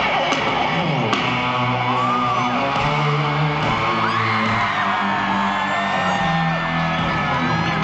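Live concert music over a stadium sound system, its bass moving between a few held notes, with a crowd screaming and whooping over it.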